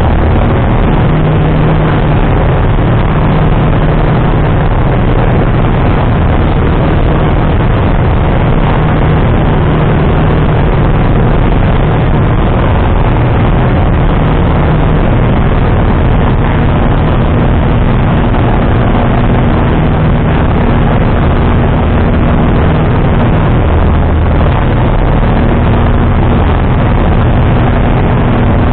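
Piston engine and propeller of a light single-engine aircraft in flight, a loud steady drone heard from inside the cockpit.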